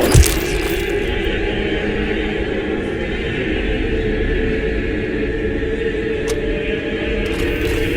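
Dark background music with sustained choir-like chanting, holding steady, with a sharp hit just after the start.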